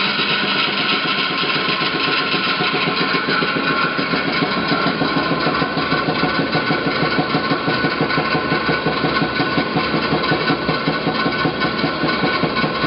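20-inch DoAll 2013-V vertical bandsaw running under its 2 hp motor: a steady machine hum with a fast, even pulsing that grows stronger a few seconds in.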